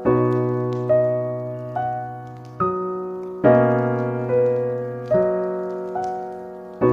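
Slow solo piano music: a single note or chord is struck at an even pace, a little more than once a second, over held low bass notes, each note fading before the next.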